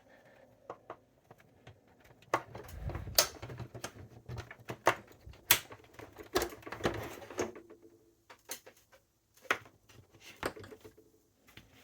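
Irregular clicks and knocks from a Montgomery Ward Signature 510D portable typewriter and its hard case as the latch tabs on both sides are pushed down to free the machine, with a few duller thumps about three seconds in.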